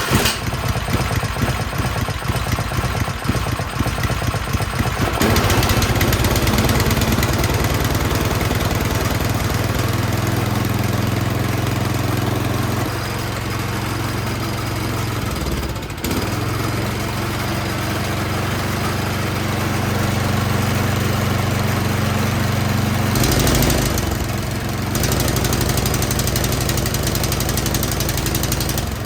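24-inch Troy-Bilt snowblower's single-cylinder four-stroke engine catching on the pull-start with the choke on and running, its speed shifting several times.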